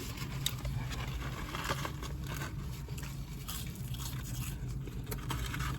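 A person chewing and biting food close to the microphone, with irregular small crunches and clicks, over a steady low hum.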